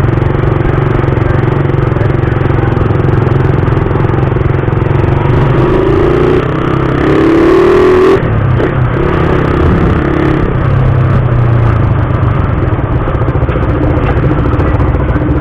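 Suzuki Raider 150's single-cylinder engine running steadily while riding, with road noise around it; the sound swells briefly about six seconds in, as the engine or passing traffic gets louder.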